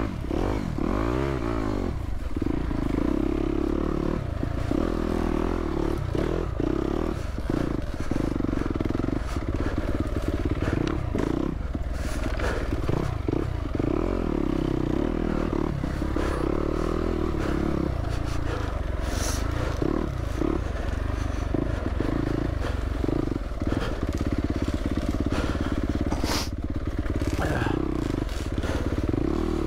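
Yamaha YZ250F dirt bike's single-cylinder four-stroke engine running at low to middling revs, the revs rising and falling with the throttle, picked up by a microphone inside the rider's helmet. A few sharp knocks come through as the bike rides over the ground.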